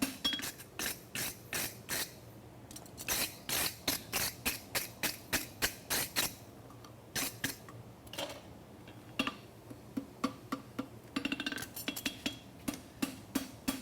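Light hammer blows on a steel horseshoe against the anvil, sharp metallic strikes in runs with short pauses, as the finished shoe is trued and flattened.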